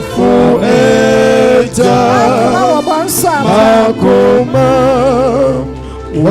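Gospel music with a sung voice holding long, wavering notes over a steady instrumental backing.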